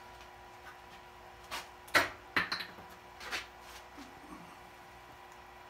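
A few short sharp knocks and clatters, the loudest about two seconds in, as wooden workpieces and tools are handled and set down in a woodturning shop, over a faint steady hum.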